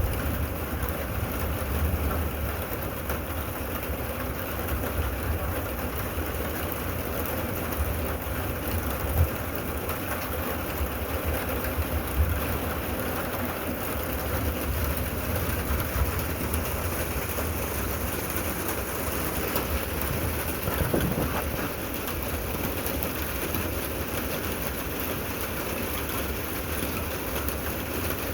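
Steady rain falling, with a low rumble underneath and a few louder single taps of drops.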